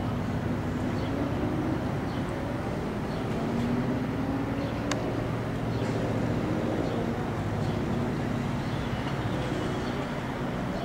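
Biplane's piston engine droning steadily in flight, its pitch drifting slightly up and down, with a single sharp click about five seconds in.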